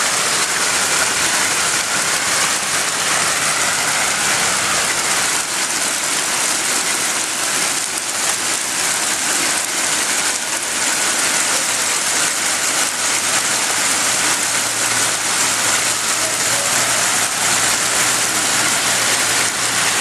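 Heavy hail pelting down: a loud, dense, continuous clatter of countless hailstones striking the surfaces around. A low steady hum joins in about two-thirds of the way through.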